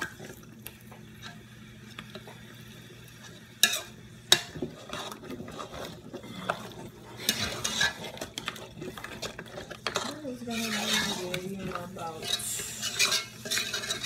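A spoon stirring and mashing thick eggplant légumes in a large aluminium pot, scraping against the pot's sides and bottom, with two sharp knocks on the pot about four seconds in.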